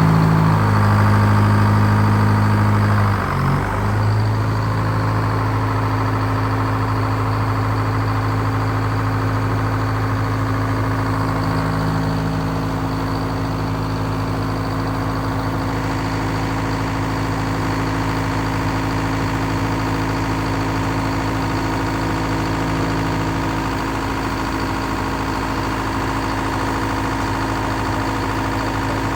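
Ford LGT-165 garden tractor engine running just after starting. It dips briefly about three and a half seconds in, then settles into a steady idle.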